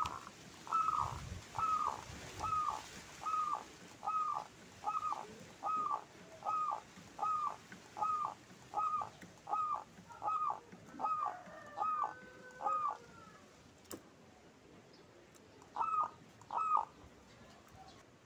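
Local zebra dove (perkutut) cooing: a long run of short, evenly spaced coos, a little over one a second, then a pause broken by a sharp click, and two more coos near the end.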